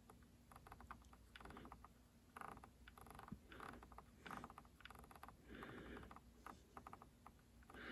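Faint, rapid clicking of a Spektrum NX8 radio transmitter's roller wheel as it is scrolled through a long menu list.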